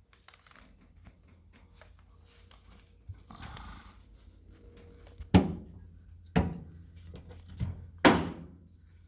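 Four sharp knocks and clunks of hard objects being handled, the first and last the loudest, preceded by a brief rustling about three seconds in.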